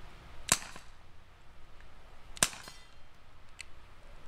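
Crosman GF600 CO2 airsoft revolver firing two sharp pops about two seconds apart, each with a brief ring, followed by a fainter click.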